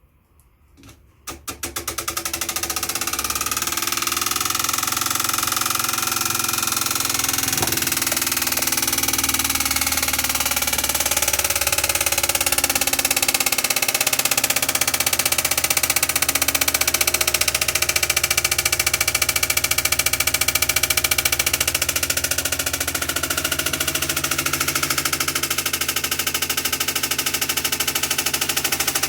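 Electric fan heater on its 2 kW setting, switched on about a second in and then running with a steady, rapid pulsing drone that sounds like an engine; the heater has already been overheated and burnt.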